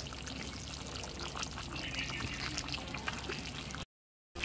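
Vegetable curry simmering in a pot on the stove, a steady bubbling with fine crackling. The sound cuts out completely for about half a second near the end.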